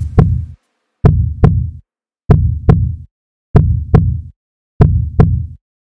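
Heartbeat sound effect: a steady run of low double thumps, lub-dub, about one pair every 1.25 seconds, with dead silence between them, used as a suspense cue.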